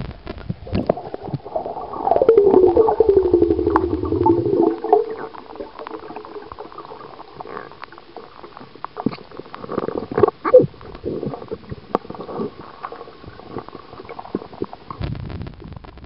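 Water gurgling and clicking around a camera held underwater in a lake, with a loud moaning tone that slides down in pitch and then holds, about two to five seconds in.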